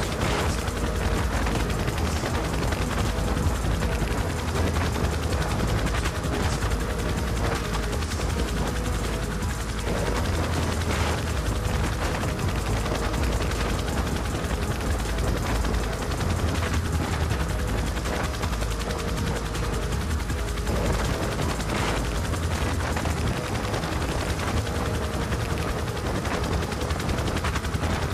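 Black Hawk helicopter running nearby, its main rotor beating in a rapid, steady thudding.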